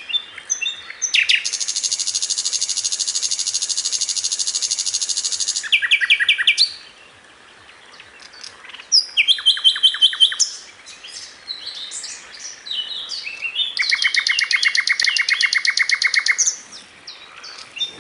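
Lovebirds chirping in high, rapid runs: a long fast chattering series about a second in that lasts several seconds, scattered chirps after a brief lull in the middle, and another fast chirp series near the end.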